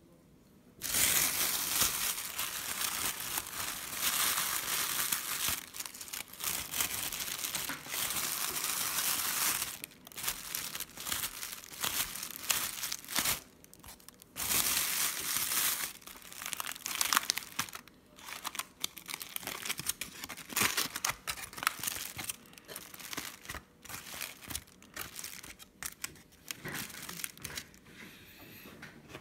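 Thin plastic carrier bag and aluminium foil wrapper crinkling as they are opened by hand. A dense run of rustling starts about a second in, then gives way to broken, irregular crinkles that thin out near the end.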